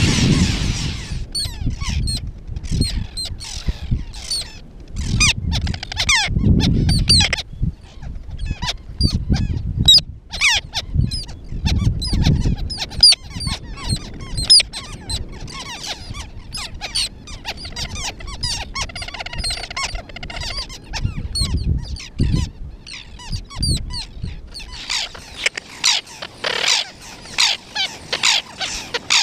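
Birds at a nesting colony calling: a dense chatter of many short, high, squeaky calls, with bursts of low rumble under them in the first half.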